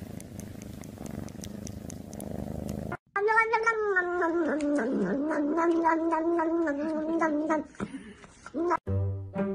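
A cat purring close up, a low steady rumble, for the first three seconds. Then a cat's long wavering moan lasts about four and a half seconds. Background music begins near the end.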